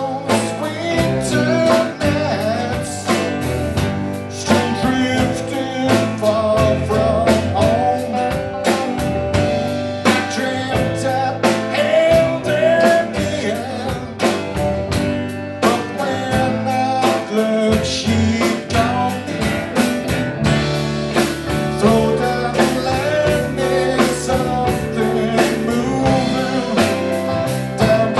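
Live band playing a song with a steady beat: drum kit, electric bass, electric and acoustic guitars and electric keyboard together.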